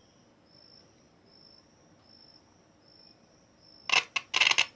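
Car radio static hissing from a test loudspeaker in a few short bursts that cut in and out near the end, as the speaker lead for channel 2 makes and breaks contact. Before that there is only a faint, high-pitched chirp pulsing about once a second.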